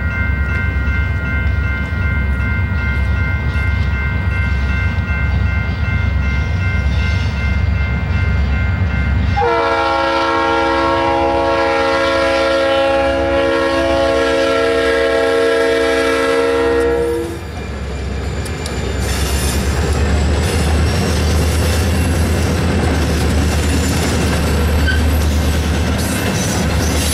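Diesel engines of two EMD SD40T-2 locomotives rumbling as they approach, with the grade-crossing bells ringing; about a third of the way in the lead locomotive sounds one long horn blast, a chord of several tones held for about seven seconds. After the horn the train's hopper cars rattle and clatter over the crossing.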